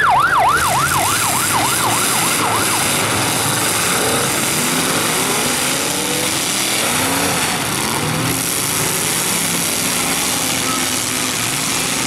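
A siren warbling rapidly, about four sweeps a second, for about three seconds: the start signal for the demolition derby heat. It gives way to many derby car engines revving up and down over a steady crowd din.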